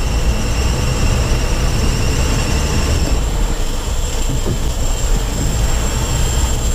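Big-game fishing reel's drag screaming in a steady high whine as a hooked tuna strips line off it, stopping abruptly about three seconds in, over a loud steady low rumble.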